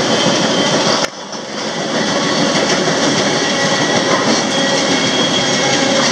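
A freight train running at speed on the rails, heard close up from the open end platform of one of its moving cars as a loud, steady running noise. About a second in the noise drops sharply, then builds back up within a second.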